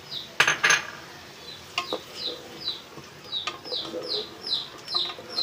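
Two sharp knocks of a spatula against the aluminium pressure cooker as the ground masala paste goes in. They are followed by stirring in the pot with a run of short, high chirps, about two to three a second.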